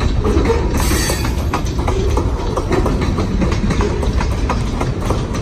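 Freight train cars (covered hoppers and boxcars) rolling past close by: a steady low rumble with the wheels clicking over the rail joints, and a brief hiss about a second in.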